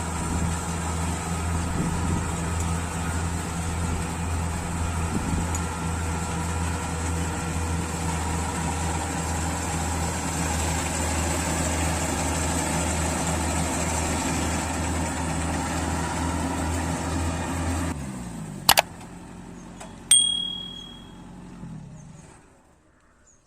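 Combine harvester engine running steadily, then winding down with falling pitch about three-quarters of the way in. Two sharp clicks follow, the second with a brief ringing tone, and the sound fades out.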